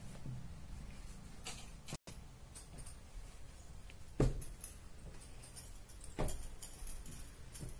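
Low room noise with a few scattered knocks and clicks. The loudest knock comes about four seconds in and another about two seconds later.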